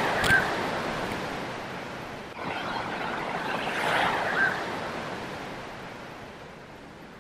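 Surf whitewater rushing around a camera held at the water's surface, in two surges, one at the start and another from about two and a half seconds in, each with a short high squeak at its peak, then fading away.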